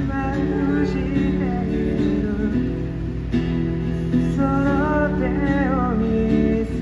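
A street busker singing a song in Japanese while strumming an acoustic guitar, the voice wavering over steady sustained chords.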